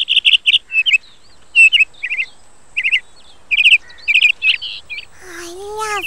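Budgerigars chirping and warbling in quick clusters of short, high notes with brief gaps between them.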